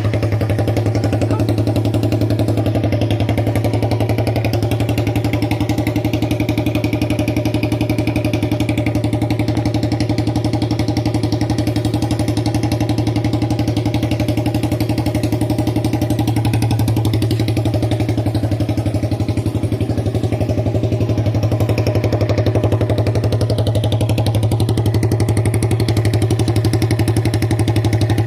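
Carbureted Suzuki Raider 150 single-cylinder four-stroke engine idling steadily, running with the exhaust canister removed.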